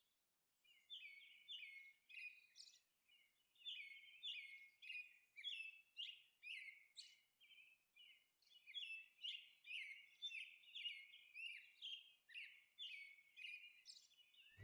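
Faint birdsong: runs of short, quick chirps, with a brief pause about halfway through.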